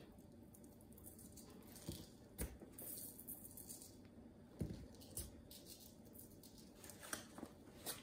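Faint, sparse rattling and patter of garlic salt being shaken from a plastic shaker onto raw venison steaks, with a few light taps and knocks of the shaker.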